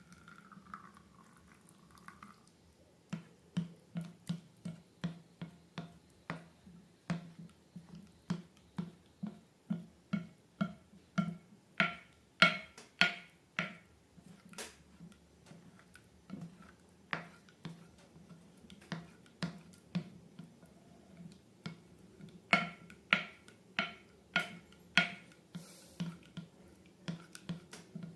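Slime being pressed and squeezed by hand, giving a steady run of sharp, wet clicking pops about two a second, starting about three seconds in.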